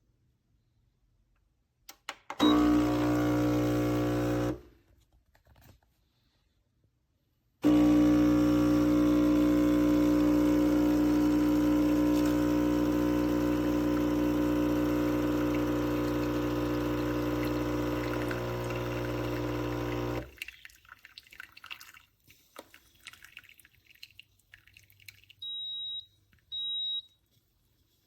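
Neretva espresso machine's pump buzzing steadily, first in a short two-second run, then again for about twelve seconds as it pumps water through, each run cutting off abruptly. Near the end come two short high beeps.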